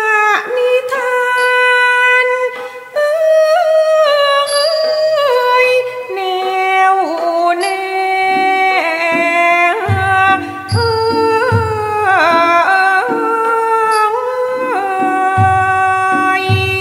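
Thai classical singing: a solo voice holds long notes and slides between them, with small ching cymbals ringing on the beat. Low drum strokes join from about ten seconds in.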